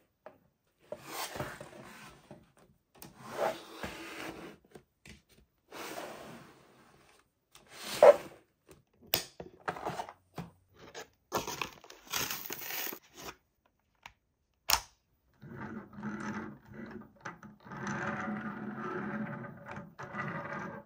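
Plastic toy being taken out of its cardboard and plastic packaging: scraping, rustling and a run of sharp clicks and knocks, the loudest about eight seconds in. For the last five seconds or so there is a continuous rattling whir as the toy canoe's plastic wheels roll across the table.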